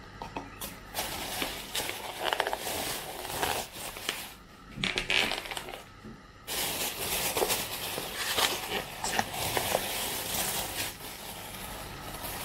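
Thin plastic carrier bag rustling and crinkling in irregular bursts as plastic takeout bowls are handled and pulled out of it, with a few light clicks of the plastic containers.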